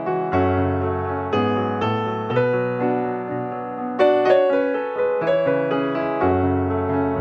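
Background piano music: a gentle melody of single notes and chords over held bass notes, with a new note about every half second.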